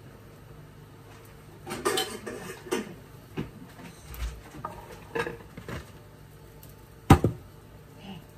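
Kitchen utensils and dishes clattering, then a few separate clinks, with one sharp, loud knock about seven seconds in.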